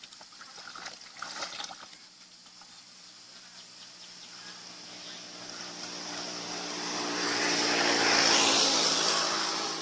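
A motor engine passes by, growing louder to a peak about eight seconds in and then fading.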